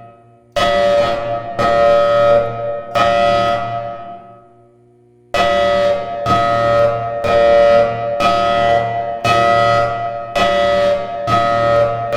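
Federal Signal Thunderbolt siren sounding a fire alarm code: a series of short blasts at a steady pitch, each starting sharply and trailing off. There is a pause of about a second a little past the middle, after which the blasts come faster.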